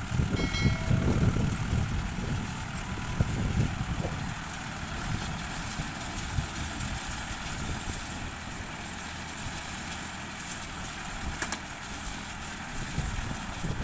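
Tractor engine running with a steady low rumble, louder for the first few seconds and then quieter and even.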